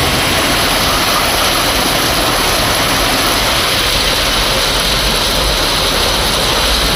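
Heavy rain falling steadily, a loud even hiss.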